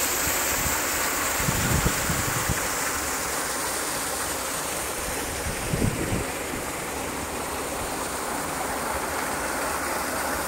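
Steady rushing of water pouring from an irrigation pump set's outlet pipe into a concrete tank, with a few brief low thumps of wind on the microphone.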